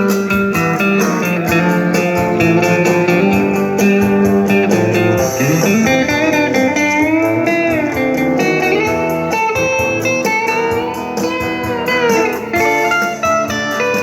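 Music: an instrumental guitar passage, a lead guitar playing sustained notes that slide up and down in pitch over the backing.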